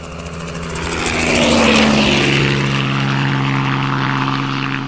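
Helicopter turbine and rotor running as the helicopter lifts off and flies close. The sound swells over the first second and a half, then holds steady with a slight drop in pitch.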